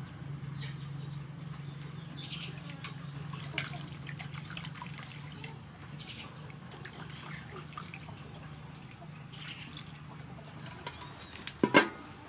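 Water splashing and dripping in a stainless-steel bowl as peeled potatoes are washed and turned by hand, over a steady low hum. A single sharp knock near the end.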